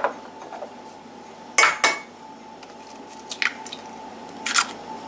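A raw egg cracked against the rim of a stainless steel saucepan and broken into it: a few sharp clinks of shell and metal, with the whisk in the pot rattling.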